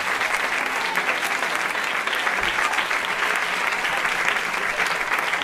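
Audience and performers applauding: many hands clapping in a steady, dense patter.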